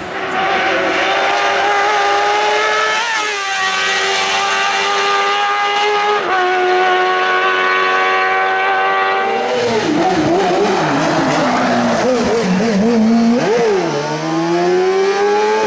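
Kart-cross buggy's motorcycle engine running hard at high revs. It holds a steady pitch with a brief dip about three seconds in. About nine seconds in the revs drop and waver, and near the end they climb again.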